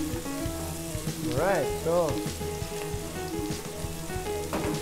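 Tuna chunks and diced vegetables sizzling in a hot frying pan as they are turned with a wooden spatula, with a single knock near the end.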